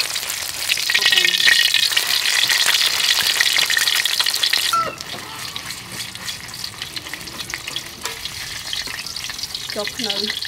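Egg frying in hot oil in a wok, a crackling sizzle with a metal spatula working in the pan. The sizzle is loud for about five seconds, then drops to a quieter sizzle.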